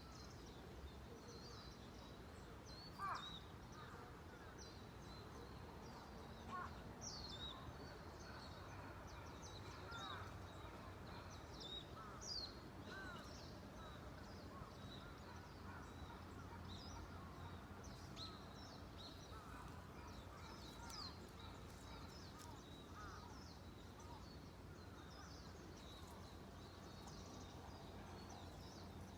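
Faint outdoor ambience of birds chirping and calling on and off, many short calls scattered throughout, over a low steady background hum.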